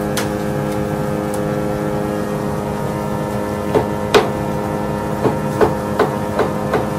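Cleaver chopping jerk chicken on a wooden chopping block: one sharp knock a little after the start, then about seven chops in the last three seconds, over a steady hum.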